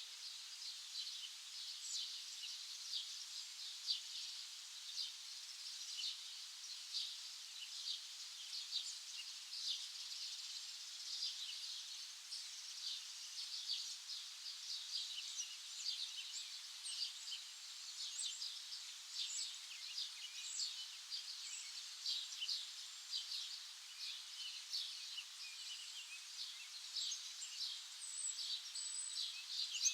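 Many small birds chirping continuously, a dense overlapping chorus of short high chirps over a steady soft hiss.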